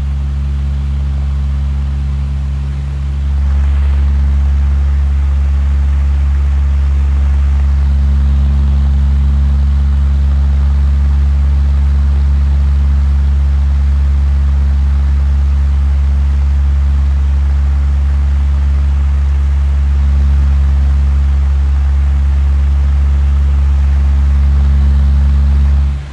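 Heavy machine engine running at a steady speed with a constant low hum. It gets a little louder about three seconds in.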